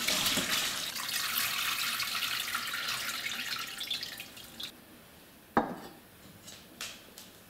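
Sugar syrup poured off orange segments through a stainless-steel strainer insert into a pot below: steady pouring and splashing for about four seconds that thins to a trickle. A single knock follows about five and a half seconds in.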